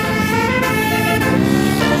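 Bus telolet horn playing a tune on several air-horn tones at once, the notes changing every half second or so, with a rising tone near the end.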